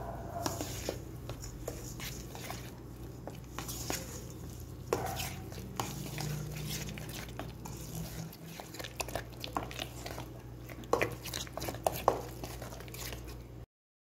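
Spices being stirred into a wet garlic paste in a bowl: soft scraping and squelching with scattered clicks and knocks against the bowl, over a low steady hum. The sound cuts off suddenly near the end.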